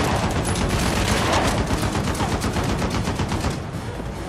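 Rapid automatic gunfire, a dense string of shots that thins out and dies down about three and a half seconds in.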